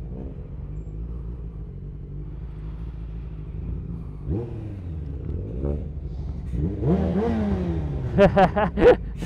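Sportbike engine running steadily at low revs, then revved briefly about four seconds in and again harder around seven seconds, the pitch rising and falling as the bike pulls away in traffic.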